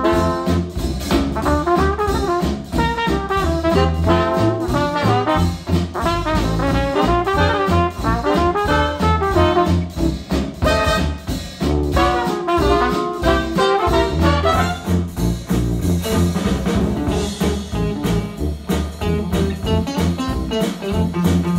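Retro acoustic jazz tune with brass over a steady bass beat, played back through bookshelf speakers driven by an Arcam SA10 integrated amplifier. Partway through, the playback moves from the Monitor Audio Bronze 100 speakers to the Polk Audio Reserve R100 speakers.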